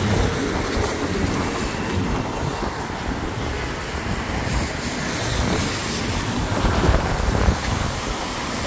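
Traffic passing on a rain-wet road, a steady rushing noise, with wind rumbling on the microphone.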